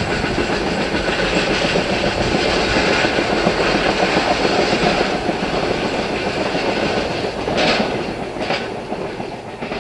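Container wagons of a freight train rolling past, steel wheels clattering over the rail joints. There are two sharp clacks about eight seconds in, then the sound fades as the train draws away.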